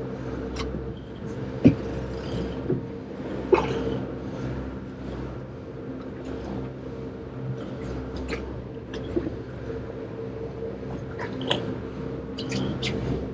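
Wet squelching and small clicks as a yellowfin tuna's gills and guts are pulled out through its slit belly, over the steady drone of the boat's outboard engines.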